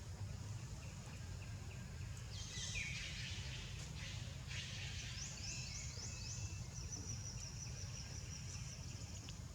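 Birds chirping and calling over a low, steady outdoor rumble. A burst of calls comes a couple of seconds in, then a run of quick falling chirps, then a thin, steady, high note near the end.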